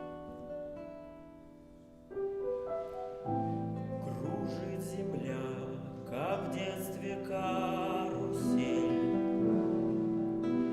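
Live ensemble music with piano and guitar: quiet, fading notes at first, then a fuller, louder accompaniment comes in about two seconds in.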